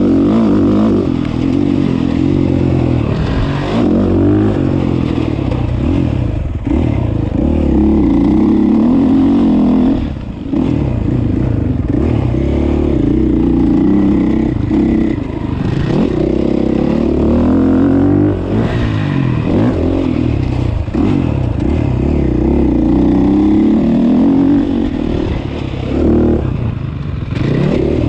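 Motocross bike engine heard on board while riding a track, revving up and down with throttle and gear changes, the throttle shutting off briefly several times.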